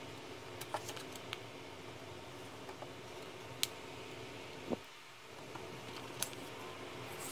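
Faint handling sounds of a 9 mm snap-off cutter blade half-cutting car-wrap vinyl on a cutting mat, then the thin cut strip being peeled off. Over a steady low hiss there are a few light ticks, a sharp tick and one soft tap.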